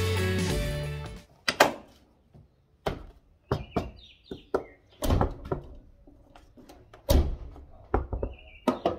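Background guitar music stops about a second in, then a knuckle knocks a dozen times at uneven spacing on the outer door panel of a Land Rover Defender, a knock test of the freshly fitted sound-deadening.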